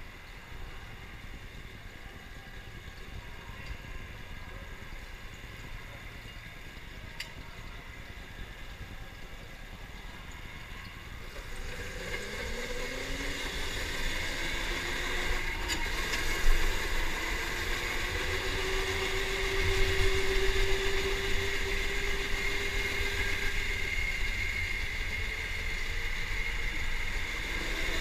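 Electric go-kart running on a concrete track: a low rumble at first, then the motor whine rises in pitch as the kart speeds up and holds steady, with one knock partway through.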